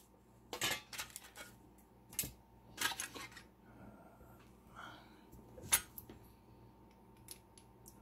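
Small metal tools clinking and tapping as they are picked up and handled: scattered light clicks, the sharpest about six seconds in.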